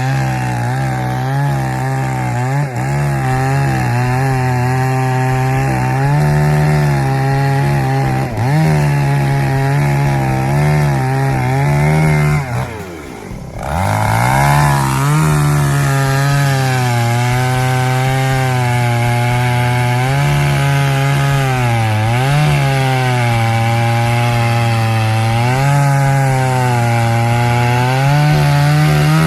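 Chainsaw running at high speed while cutting wood, its engine pitch wavering under load. About thirteen seconds in the engine drops away briefly, then revs back up and carries on cutting.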